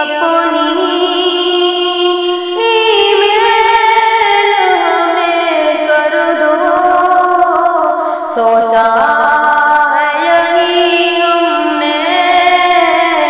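A woman singing a ghazal melody over musical accompaniment, her voice holding long notes and sliding between them.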